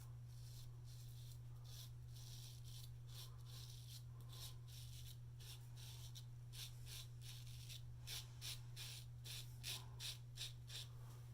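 Single-edge safety razor strokes scraping stubble through lather on the second pass: a series of short, faint raspy strokes that come thicker and louder after about eight seconds, over a steady low hum.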